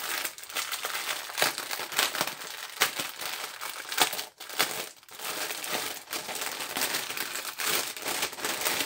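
Clear plastic bag crinkling as hands handle and pull it open, with scattered sharper crackles; the bag wraps a diamond painting kit's packs of drills and toolkit.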